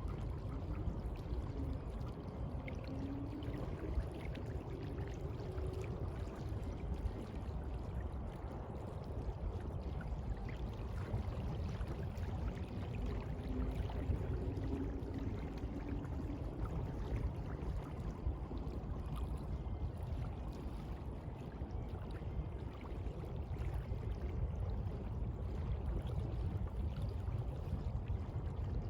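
Sea water washing and lapping steadily, a continuous low rush without distinct breaking waves.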